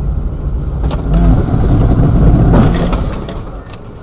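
Car driving in traffic, its engine and road rumble swelling about a second in and easing off near the end, with a few sharp clicks.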